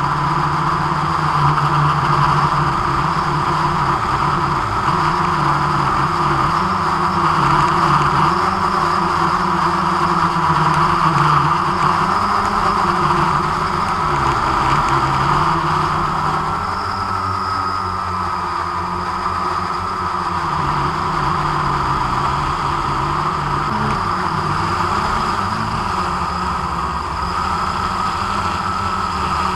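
Quadcopter drone's electric motors and propellers whirring steadily, heard through the drone's own onboard microphone, with small shifts in pitch as it manoeuvres.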